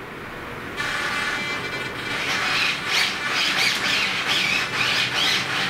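Electric RC servos whining as they drive the F-14 model's stabilators back and forth. A steadier whine starts about a second in, and from about two seconds in it turns to a quick, repeated rising and falling whine, about three swings a second.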